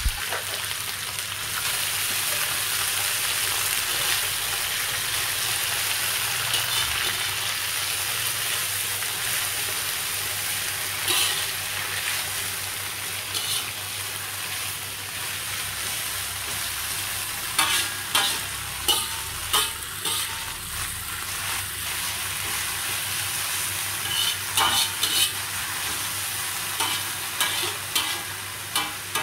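Pucuk miding fern shoots frying in hot oil in a metal wok: a steady sizzle throughout. A metal spatula scrapes and clinks against the wok now and then, in clusters in the second half.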